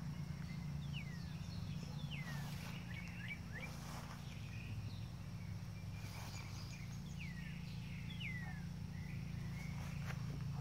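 Outdoor ambience: a steady low hum underneath, with a bird calling in short downward-sweeping chirps several times, and a few soft scuffs or knocks.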